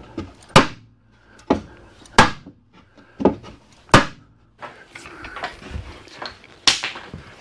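A mallet knocking on the top edge of an edge-glued wooden panel, about five sharp blows in the first four seconds, tapping the boards down flush while the glue is wet. Near the end, lighter clatter and one more knock as a bar clamp is handled and set on the panel.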